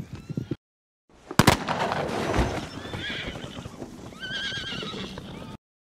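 Hoofbeats, then a brief silence broken by a single sharp gunshot about a second and a half in. Horses neigh after it with a wavering whinny, once near the middle and again near the end, before the sound cuts off.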